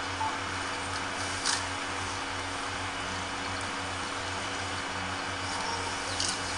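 Steady hiss with a low hum underneath, and two brief faint clicks, one about a second and a half in and one near the end.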